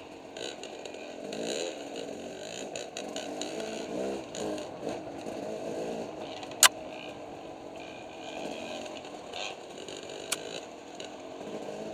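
Two-stroke dirt bike engine running on a trail, its pitch rising and falling as the throttle is worked. A sharp, loud knock comes about two-thirds of the way through, and a smaller one near the end.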